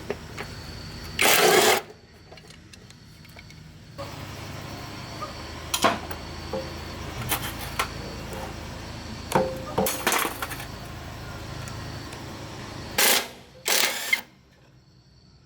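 Metal tools and engine parts knocking and clattering in a series of sharp bangs, the loudest about a second in and twice near the end, over a low steady hum that stops near the end.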